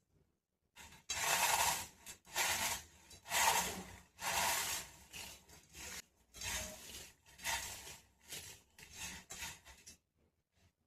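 Repeated rasping, scraping strokes, about one a second, that stop shortly before the end.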